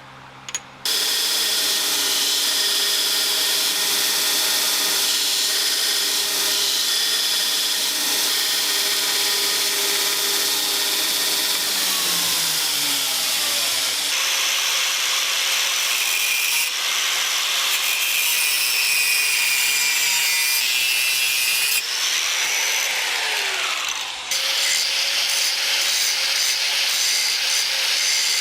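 Electric power tool working steel, starting abruptly about a second in and running continuously, with its motor tone dropping twice as it is loaded into the work.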